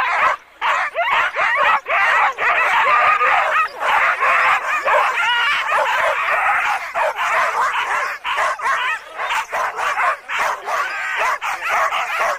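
Many sled dogs barking and yipping at once, a dense, continuous chorus with many calls overlapping.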